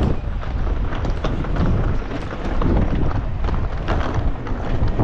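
Strong wind buffeting the microphone, a gusting low rumble that rises and falls.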